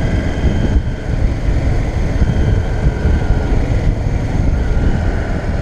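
Wind buffeting an action camera's microphone on a moving Yamaha DragStar Classic, with the cruiser's air-cooled V-twin engine running steadily under it. The sound is a loud, even low rumble throughout.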